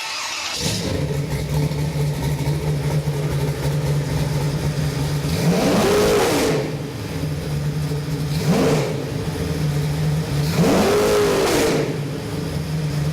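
A 383 stroker small-block Chevy V8 (360 hp) runs on an engine test stand. It catches about half a second in, settles into a steady idle, and is revved three times, each rev climbing and falling back to idle.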